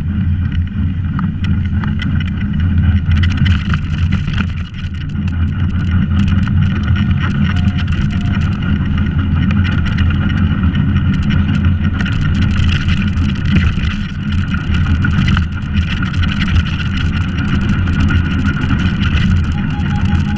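Soapbox cart rolling fast downhill on asphalt, heard from a camera fixed to the cart: a continuous low rumble of the wheels and chassis on the road, with frequent rattles and knocks.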